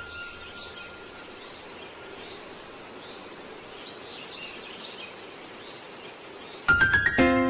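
A steady hiss-like background noise with no clear events, then near the end a sudden swell of rising tones that settles into a sustained musical chord as background music comes in.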